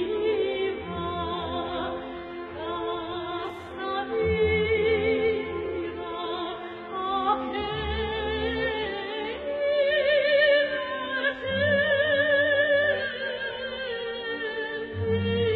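Music: an operatic voice singing long notes with wide vibrato over a low, steady accompaniment.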